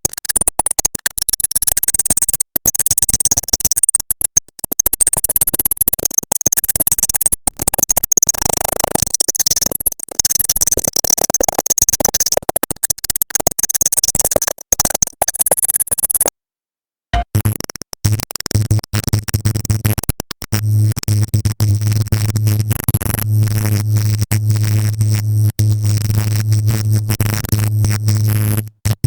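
AI-generated experimental electronic sound from Stable Audio Open: a glitchy, stuttering texture with a bright hissy top that breaks off about halfway. After a brief silence a second generated clip starts, rapid chopped clicks over a steady low drone.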